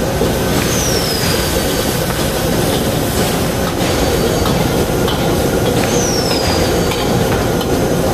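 Stir-frying in a wok over a high-flame burner: a steady loud roar and sizzle, with a metal ladle scraping and tossing the food in the wok. Two short high squeals fall in pitch, about a second in and again about six seconds in.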